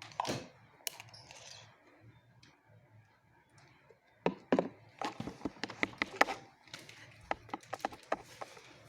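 Clear slime being worked by hand or stirred in a container, giving a few knocks at first, then from about four seconds in a dense run of quick sticky clicks and pops.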